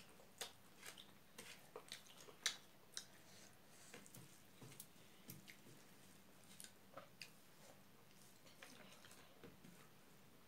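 Faint eating sounds: chewing and small wet mouth clicks from people eating rice by hand, coming irregularly, with the sharpest clicks about half a second and two and a half seconds in.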